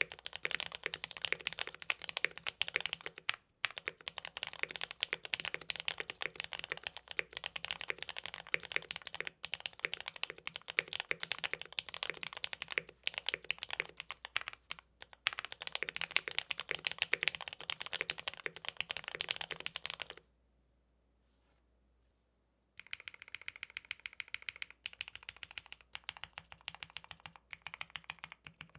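Typing on a MODE Eighty TKL mechanical keyboard with Gateron Black Ink V2 linear switches on a POM plate, tape-modded: a fast, continuous stream of keystroke clacks. About 20 seconds in the typing stops for two to three seconds, then the keys start again with more spaced-out presses.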